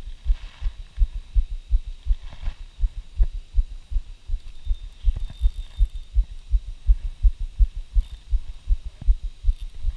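Rapid, uneven low thuds from inside a chest-mounted GoPro, several a second, which the angler wearing it takes for his heart beating.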